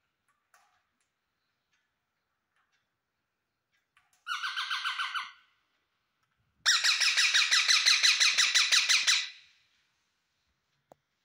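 Rose-ringed parakeet giving rapid strings of calls, several a second: a short burst about four seconds in, then a longer, louder one of about two and a half seconds.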